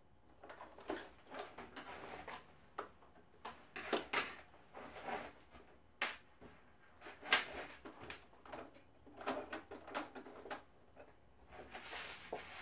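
Heavy woven fabric being handled and shifted by hand, rustling and rubbing, with scattered light clicks and knocks; the sewing machine is not running.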